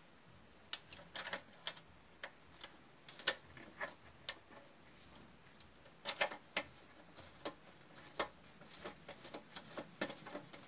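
Irregular light clicks and taps from handling a glass cartridge fuse and its holder as the fuse is refitted in an automatic voltage stabilizer, the sharpest a little over three seconds in and a quick cluster about six seconds in.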